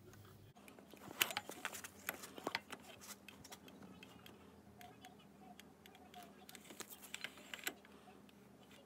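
Faint, irregular metallic clicks and ticks as an air-cooled 250 cc ATV engine is turned over slowly to bring the flywheel timing mark to top dead centre, with no engine running.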